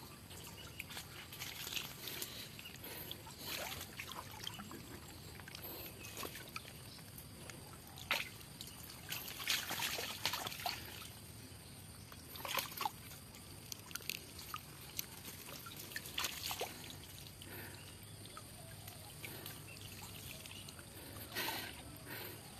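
Water trickling and sloshing as a fine-mesh lift net is raised and handled in shallow creek water, with scattered small splashes at irregular intervals.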